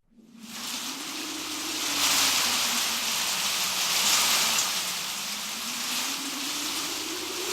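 Heavy rain and wind of a hurricane: a steady hiss with a faint low tone that rises and falls twice.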